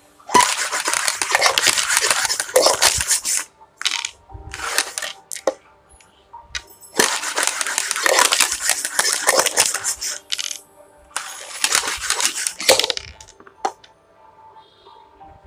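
Dice rattling inside a clear plastic cup as it is shaken and swirled on a tabletop. There are three long spells of rapid clattering, with a few single clicks between them.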